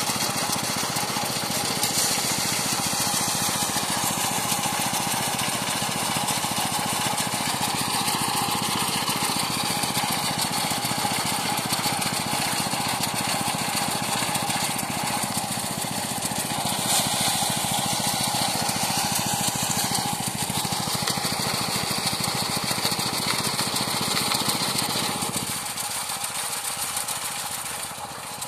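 Motorised rice threshing machine running steadily, its small engine and spinning threshing drum making a continuous mechanical noise with a steady hum; it drops a little in loudness near the end.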